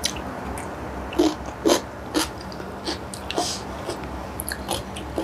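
A person chewing a mouthful of cucumber and noodles close to a clip-on microphone: a run of short, wet chewing sounds about every half second.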